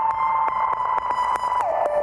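Synthesized electronic ringtone track playing back: a held beep-like tone over a rapid ticking pulse of about five clicks a second, the tone sliding down in pitch about a second and a half in.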